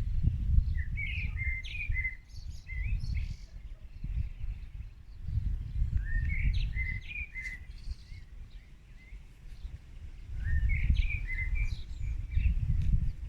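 A wild songbird singing the same short, quick phrase of notes three times, about five seconds apart, over a gusting low rumble.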